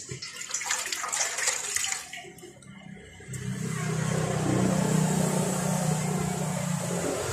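Irregular rushing hiss with a few clicks, then about three seconds in a steady machine hum starts with a high hiss over it.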